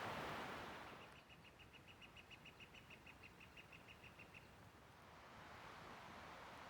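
A bird calling in a rapid trill of short, high chirps, about eight a second, for about three seconds. A faint rushing noise fades about a second in and returns near the end.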